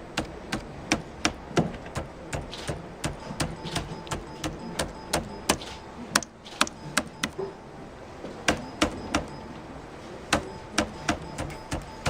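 Keys on the Galleria VF-HG keyboard pressed one at a time: sharp, separate key clicks, a few a second at an uneven pace.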